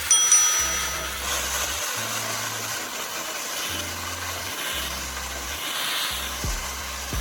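Background music with a repeating low bass line over a steady hiss, and a brief metallic ring about a quarter of a second in.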